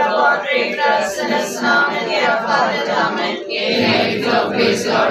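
A small group of people, mostly women, singing a hymn together without accompaniment.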